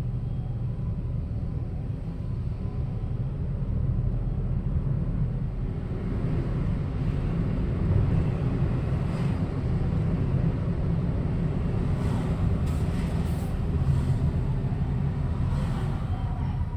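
Road traffic rumble from passing vehicles, a little louder from about four seconds in, with a few brief hissy swishes near the end and no siren.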